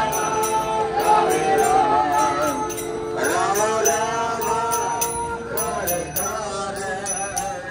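Devotional music: a voice singing a gliding melody over a held drone, with a steady jingling beat of small bells or cymbals.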